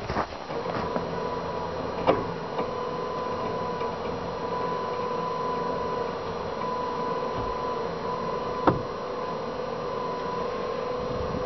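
Battery-powered electric winch running steadily with a humming whine as its cable hoists a 54-inch Yellowstone compaction drag up onto the side of a trailer. Two sharp metal clanks, about two seconds in and near the end.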